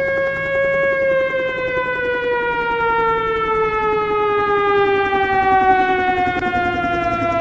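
Air-raid siren sounding one long wail that holds its pitch and then slowly falls, over a low rumble.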